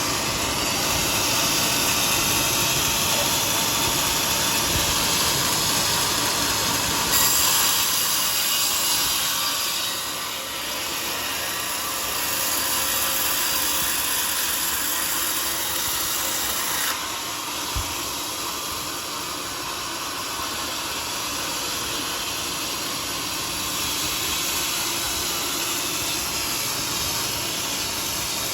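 Motorised saw cutting through teak wood: a steady cutting noise that shifts in tone twice, with a short knock after the second shift.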